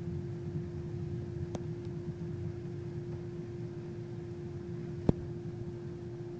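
Steady low hum with a faint constant tone above it, and a single sharp click about five seconds in.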